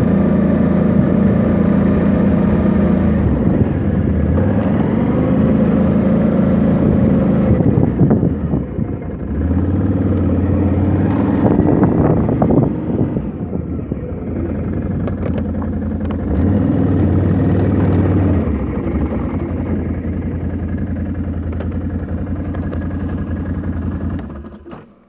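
Snowmobile engine running while under way, its pitch stepping up and down several times as the throttle changes. The sound cuts off just before the end.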